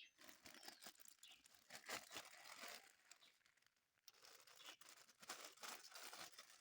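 Packaging rustling and crinkling faintly with small clicks as a tripod is handled and unwrapped, pausing briefly a little past the middle.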